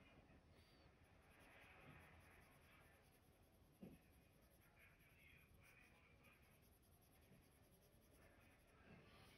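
Faint scratching of a Prismacolor coloured pencil shading on paper, coming in spells, with one light tap about four seconds in.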